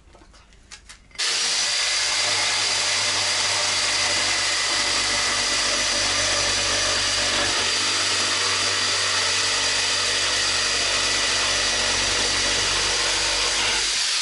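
Electric jigsaw starting about a second in and running steadily as it cuts through a wooden cladding board.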